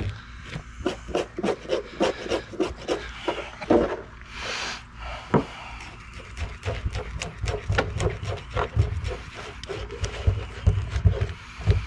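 A spoon scraping the tiny scales off a pompano on a plastic cooler lid, in quick repeated strokes of about three a second.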